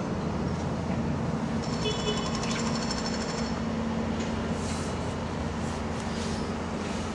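Diesel multiple unit, an East Midlands Trains Class 158, idling at the platform with a steady low engine hum. A quick run of high beeps comes about two seconds in.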